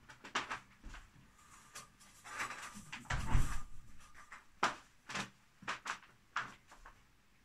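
Scattered light knocks and clicks, with a louder, duller thump about three seconds in.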